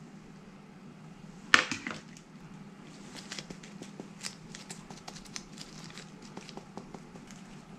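A stainless steel tray knocks down sharply on the countertop about one and a half seconds in, then a salt-and-pepper shaker is shaken over a pork roast with a run of light, irregular ticks and rattles, over a steady low hum.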